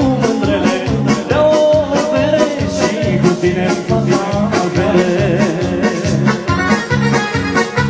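Band music for dancing, with a steady quick beat and a wavering melody line.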